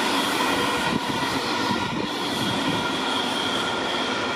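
Electric commuter train running through the station: wheels rumbling on the rails, with steady high-pitched whining tones over the top. The level dips slightly about a second in.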